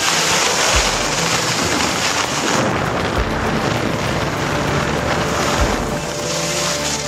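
Wind rushing over the camera microphone as it slides fast down a groomed snow slope, the noise swelling and easing, with a few low bumps.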